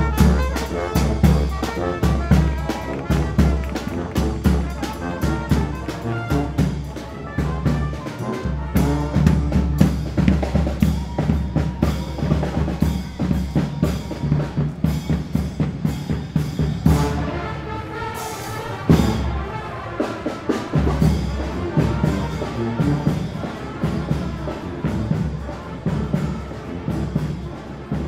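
Street brass band playing, horns over a steady beat of marching drums.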